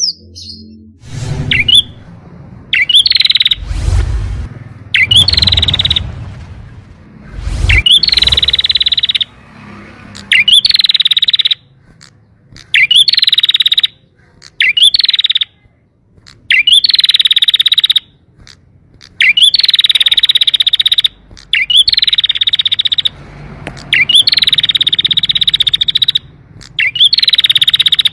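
Canary singing: about a dozen phrases, each a quick upward chirp that runs into a fast, buzzing trill of one to two seconds, with short gaps between them.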